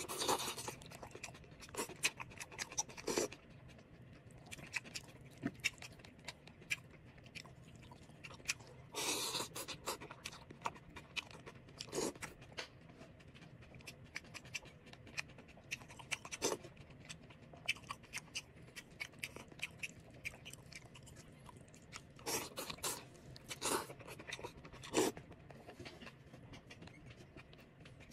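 A person eating noodle soup: wet slurps of noodles right at the start, about a third of the way in and again about four-fifths in, with many short smacking clicks of chewing in between.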